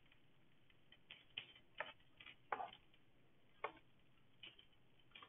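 Faint, irregular ticks and taps of a stylus on a writing tablet, about eight scattered across the few seconds, in otherwise near silence.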